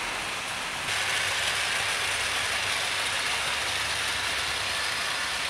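OO gauge model trains running on the track: a steady hiss and rumble from wheels on the rails and small electric motors. It gets slightly louder about a second in.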